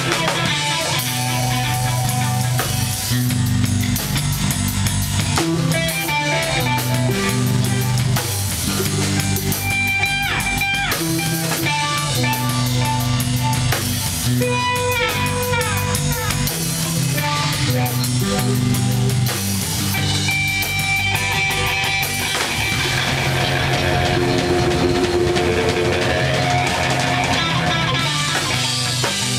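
A rock band playing live on electric guitars and a drum kit, loud and continuous, with a few sliding notes partway through.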